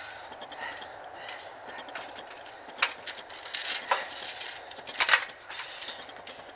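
Trampoline springs and frame clinking and creaking as people move and bounce on the mat, with a few sharp metallic clanks, the loudest about three seconds in and again around five seconds.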